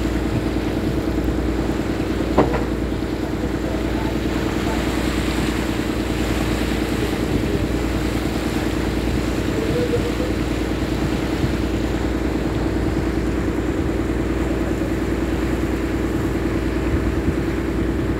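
Small fishing boat's outboard motor running steadily at cruising speed, an even drone, with one sharp knock about two and a half seconds in.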